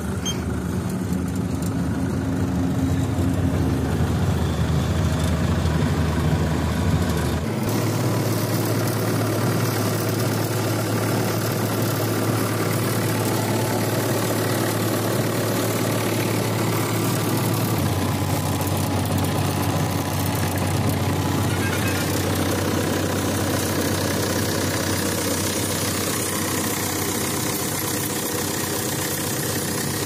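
John Deere W70 combine harvester's diesel engine running steadily.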